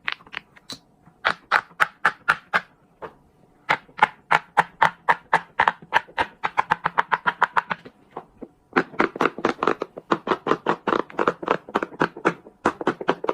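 Silicone pop-it fidget toys having their bubbles pressed through one after another, a fast run of sharp pops. There are two short breaks, about three seconds in and eight seconds in, and the pops quicken to several a second.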